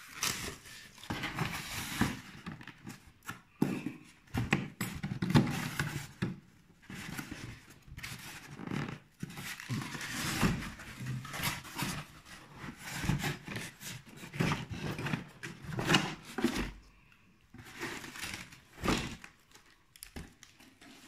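Handling noise of a taped cardboard parcel box being opened and a shrink-wrapped Blu-ray box taken out: irregular scrapes, plastic and cardboard rustles, and knocks on the table.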